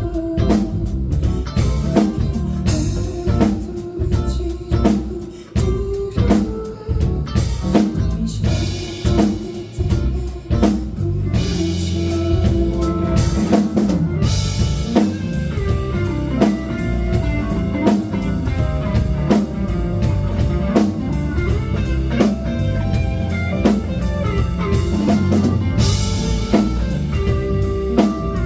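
Rock band playing live: drum kit with cymbal washes and guitars in an instrumental passage with no vocals.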